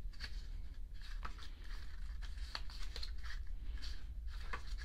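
Pages of a small photo book being turned by hand: soft paper rustles and light ticks at irregular intervals, over a low steady hum.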